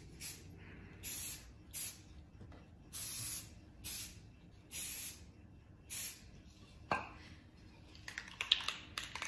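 Rust-Oleum camouflage aerosol spray paint hissing out in about seven short bursts over six seconds, the nozzle pressed and released in quick dabs. A sharp click and a few light taps follow near the end.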